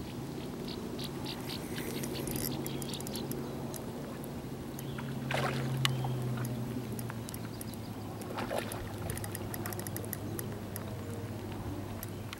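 Lake water lapping and splashing against a rock ledge at the shoreline, with a couple of louder splashes about five and eight seconds in, over a steady low drone.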